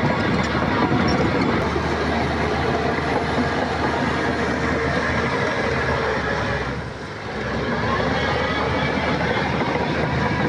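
Heavy crawler bulldozer's diesel engine running steadily with mechanical clatter, dipping briefly in level about seven seconds in.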